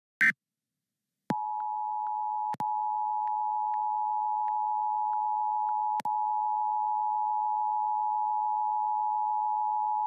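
Emergency Alert System attention signal, the steady two-tone alarm of 853 Hz and 960 Hz that announces an emergency alert. It starts about a second in, after a short loud blip, and holds with two brief dropouts.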